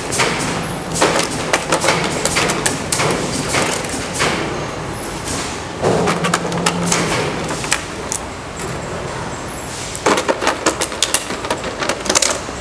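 Two-wheel self-balancing scooter (hoverboard) thrown and dropped onto concrete, its shell and wheels banging and clattering in quick runs of knocks as it tumbles and skids: a drop-durability test. There is a run of knocks early, a single bang about six seconds in, and another rattling run near the end.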